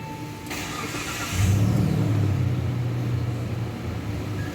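Car engine started with a push-button start: a short crank, then the engine catches about a second and a half in, flares up and settles into a steady idle.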